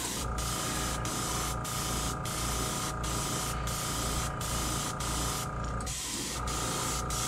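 Airbrush spraying neon orange paint onto a crankbait: a steady hiss of air with a thin whistling tone. It cuts out briefly about six seconds in, then starts again.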